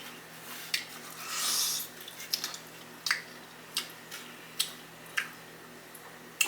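A person chewing chicken wings: sharp wet mouth clicks and smacks about once every half to one second, with a short breathy hiss about a second and a half in.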